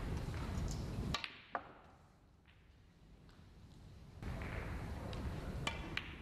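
Snooker cue and balls clicking: a sharp click about a second in, a lighter knock just after, then two more clicks near the end, over a low room hum.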